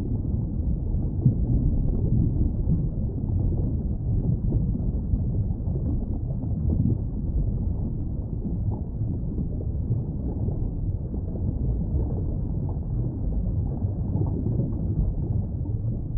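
Underwater ambience: a steady low rushing rumble of water noise, with no distinct dolphin whistles or clicks standing out.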